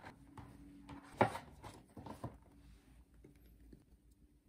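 Soft handling noises of a paper shopping bag and a boxed phone on a tabletop: a few light taps and rustles, the sharpest about a second in.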